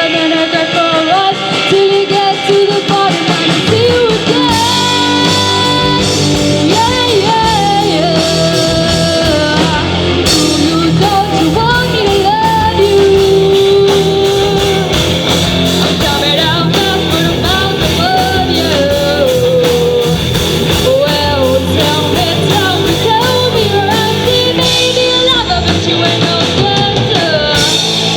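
Live rock band playing a cover song: a singer carrying the melody over guitar and drums, with a steady beat.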